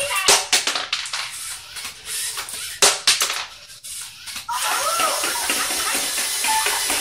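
LEGO Mindstorms robot spider walking on a wooden floor: irregular plastic clicks and knocks of its legs, then a steady motor whir for the last couple of seconds, with a few short electronic chirps mixed in.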